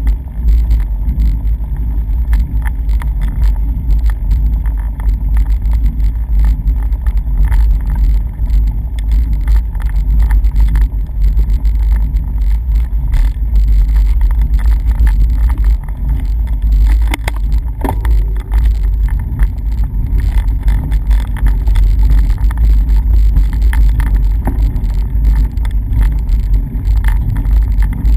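Wind buffeting a moving action camera's microphone: a loud, steady low rumble.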